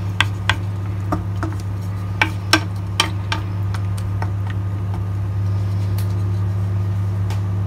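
Wooden spoon stirring chopped tomatoes, onion and cashews in water in a nonstick wok, tapping the pan in a series of light clicks that thin out after about four seconds. A steady low hum runs underneath.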